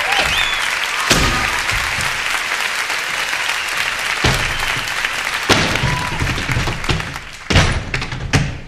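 Theatre audience applauding and cheering, with a few whistles. The applause dies down after about five seconds, and several heavy thumps of tap boots stomping on the wooden stage platform stand out near the end.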